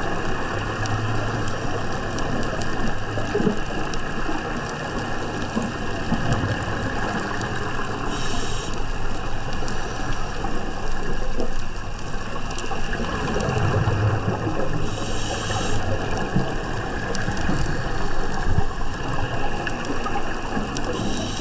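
Underwater recording with a steady rush of water and fine crackling, and a scuba diver's regulator breathing, with a burst of exhaled bubbles every several seconds.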